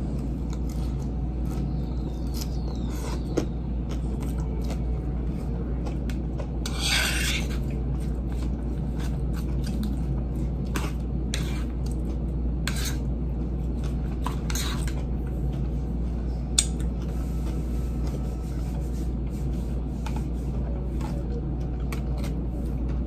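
Close-up eating sounds of a spinach salad: chewing with scattered short crisp crunches and a fork scraping and clicking in the bowl, including one longer rasp about seven seconds in. A steady low hum runs underneath.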